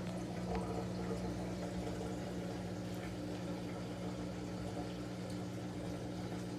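LG front-load washer's drain pump running with a steady hum as water flows through it, draining the machine at the end of its extract cycle; the pump is working fine.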